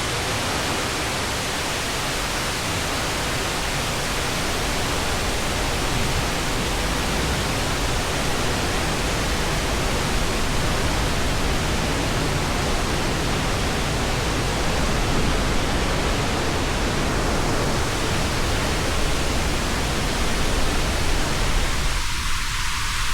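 Burney Falls waterfall pouring: a steady, even rush of falling water with no break.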